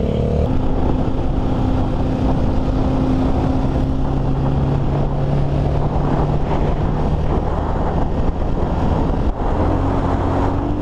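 Motorstar Cafe 400's single-cylinder engine running as the motorcycle rides along, with wind rushing over the microphone. The engine note holds fairly steady and sinks slowly, then about nine seconds in it dips briefly and comes back higher, climbing slowly.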